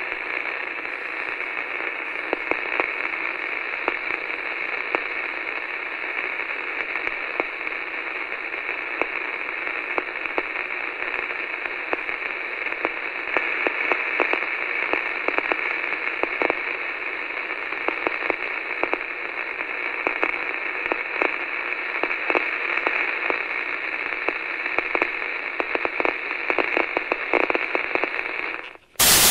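Radio-style static: a steady, narrow-band hiss with frequent crackles. Right at the end it jumps to a louder burst of full white noise.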